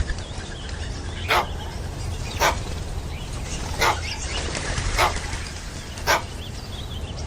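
A dog barking, single short barks about once a second, five in all, over a steady low hum.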